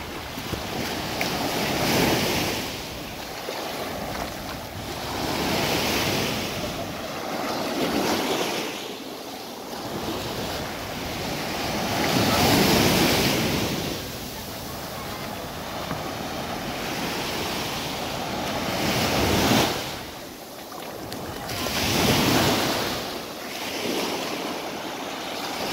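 Sea waves breaking and washing up a sandy beach in repeated swells, each rising and falling over a few seconds, the biggest about halfway through.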